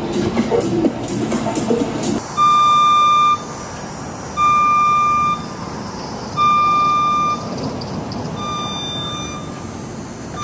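Electronic music for about two seconds, then a backup warning alarm beeping: four steady one-second beeps about two seconds apart, the last one weaker and broken, over a steady outdoor background hiss.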